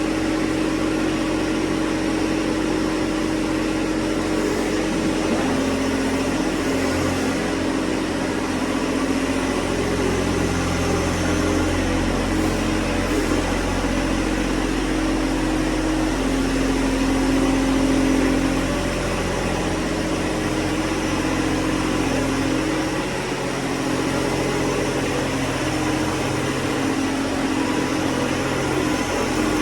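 John Deere 1025R compact tractor's three-cylinder diesel engine running steadily, its pitch shifting slightly a few times.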